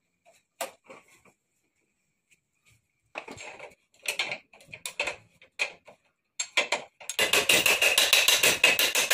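Metal hand tools clinking and rattling against the rusty rear axle and hub of a Honda EX5 motorcycle while the rear wheel is being taken off. The clicks are sparse at first, come in short clusters from about three seconds in, and turn into a fast, continuous run of metallic clicking over the last two seconds.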